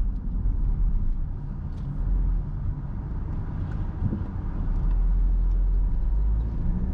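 Car driving on the road: a steady low rumble of engine and tyres, which grows a little louder a little past the middle.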